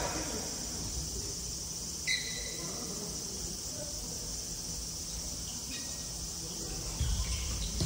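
A steady high-pitched insect drone fills the hall, with a short sneaker squeak on the wooden court floor about two seconds in and a fainter one near six seconds.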